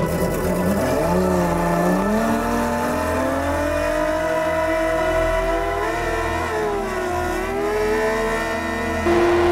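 Johnson outboard motor driving a large water pump, revving up with a wavering pitch that climbs, dips and climbs again, while the pump's outlet gushes water.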